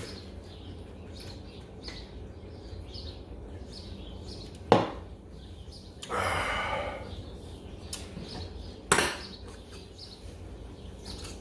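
Two sharp knocks about four seconds apart, with a brief rustling scrape between them, over low steady background noise.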